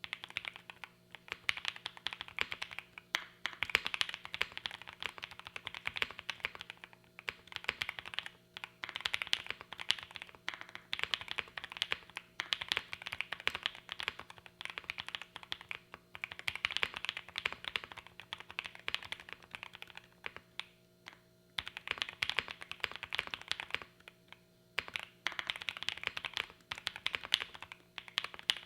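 Continuous typing on a Mr. Suit TKL mechanical keyboard with Creamcicle linear switches on a POM plate with PE foam: a dense stream of poppy, clacky keystrokes in runs, broken by short pauses a few times.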